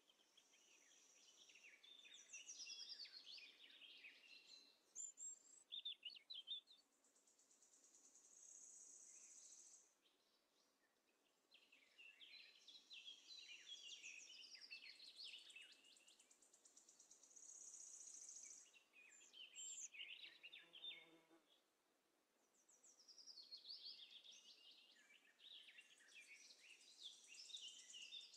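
Faint outdoor birdsong: small birds chirping and twittering in quick clusters that come and go every few seconds. Between the clusters there is a high, steady buzz that swells and fades.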